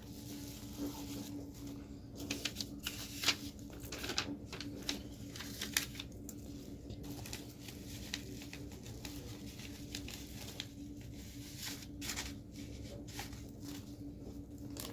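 Light handling noises of a smartphone being held and tapped: scattered small clicks and rustles, busiest in the first half and again near the end, over a steady low hum.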